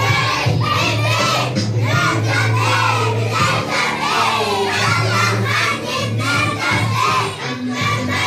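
A group of young children singing together along with backing music that has a steady bass line.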